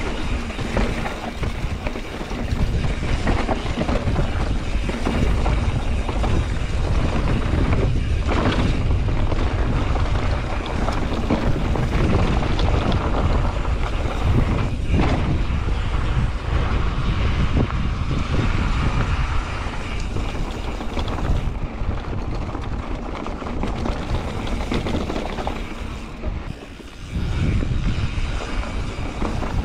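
Wind buffeting the microphone over the rolling tyre and frame rattle of a Santa Cruz Hightower LT full-suspension mountain bike riding a trail, with a couple of sharper knocks along the way.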